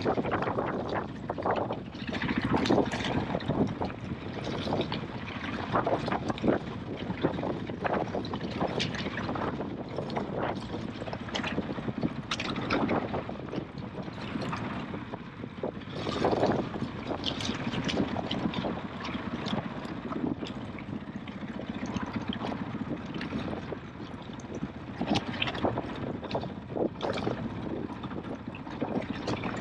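KTM EXC-F 500 single-cylinder four-stroke enduro bike riding a rough off-road lane, its engine noise mixed with a steady rush and frequent knocks and rattles throughout.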